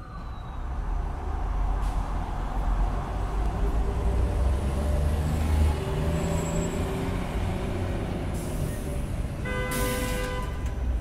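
City street traffic: a heavy vehicle's low engine rumble fades in and holds steady. Near the end comes a brief loud hiss with a pitched squeal, like a bus or truck braking.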